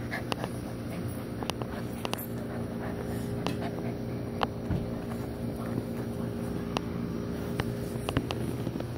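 A steady low mechanical hum, with scattered light clicks and taps close to the microphone as puppies scuffle and are handled.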